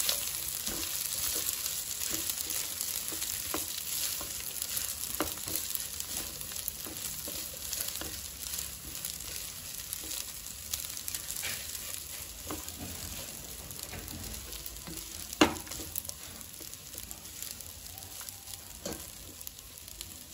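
Cooked rice and prawns sizzling in an oiled nonstick pan as they are stirred and turned with a silicone spatula: a steady frying hiss with scattered light scrapes and taps, and one sharp knock about two-thirds of the way through.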